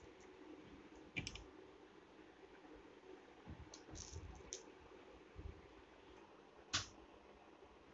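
Faint scattered clicks and light taps from hands handling a small yarn-wrapped craft disc with beads and pressing a piece into its centre, with one sharper click about seven seconds in.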